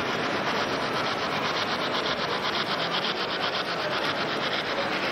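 Model steam locomotive running along a layout's track: a steady rushing whir with a fast, even clicking.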